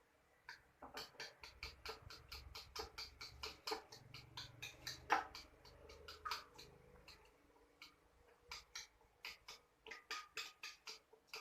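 Beaten eggs being mixed with a utensil in a bowl: quick clicks against the bowl, about five a second, stopping for a moment about seven seconds in and then starting again.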